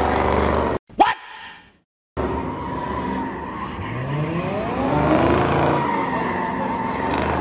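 A car doing donuts: its engine revving up and down over a steady tire squeal. The sound cuts out for about a second and a half near the start, with a sharp click in the gap.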